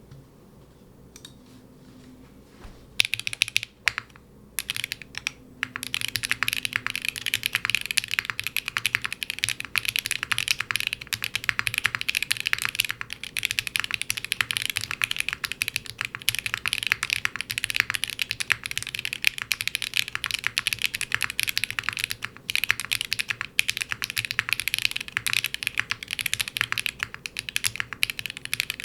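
Mechanical keyboard with factory-lubed HMX Martini V2 linear switches being typed on, the Machina Cloudnine board. A few separate keystrokes come about three seconds in, then fast continuous typing from about six seconds on.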